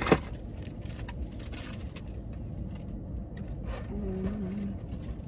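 Eating in a car: small clicks and rustles of fast-food wrappers and cups over a steady low rumble of the car's cabin. A sharp knock comes right at the start, and a short hummed 'mm' about four seconds in.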